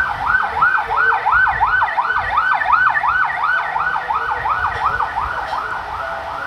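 A siren sounding a rapid yelp, its pitch rising and falling about three and a half times a second without a break.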